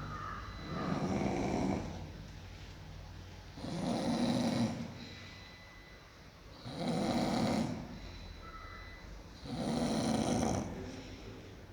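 Snoring in slow, regular breaths: four loud snores, each about a second long, coming about every three seconds with quieter pauses between them.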